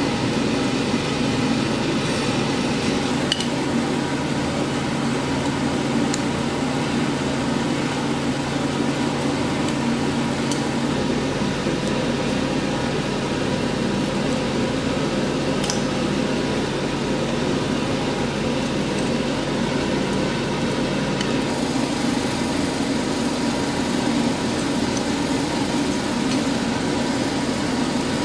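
A steady mechanical hum runs throughout. Over it come a few faint metal clicks as pliers bend the wire loop of a small steel pendant held in tongs on an anvil.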